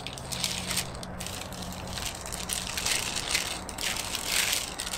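Crumpled packing paper crinkling and rustling as it is handled and unfolded by hand, in a continuous irregular run of crackles.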